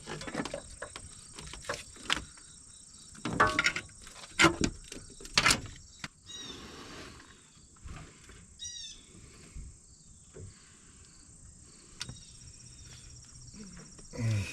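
Scattered knocks and clicks from a new transmission shift cable being handled and pushed into place along the pickup truck's frame, several in the first half and one more later. A few short bird chirps and a steady high insect drone sound behind.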